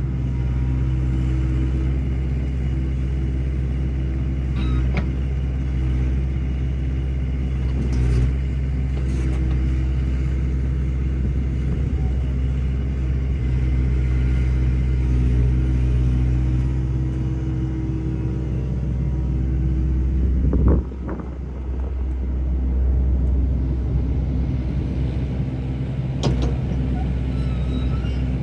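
A vehicle engine running steadily, a low even hum. A few faint knocks sound over it, with a louder knock about 21 seconds in.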